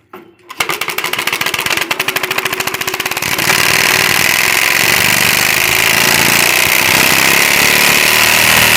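A stiff plastic card set in a cut plastic bottle on a bicycle, flicking against the turning wheel's spokes. It starts as a fast clatter of clicks that speeds up with the wheel and, about three seconds in, blends into a loud continuous buzz imitating a motorcycle exhaust.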